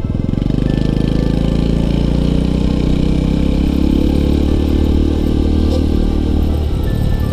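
Motorcycle engine running under throttle as the bike rides along, with a steady engine note that eases off about six and a half seconds in.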